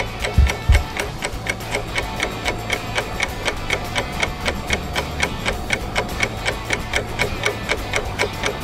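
Clock-ticking sound effect, a rapid even ticking at about four ticks a second, over light background music, with two low thumps about half a second in.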